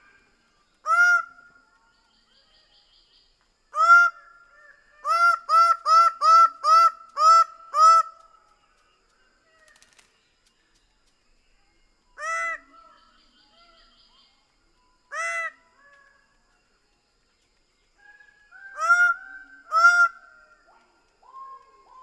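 Greater bird-of-paradise giving loud, repeated calls: single calls, then a fast run of about seven at roughly two a second, then more spaced single calls and a pair near the end. Faint high chirping from another bird can be heard in the gaps.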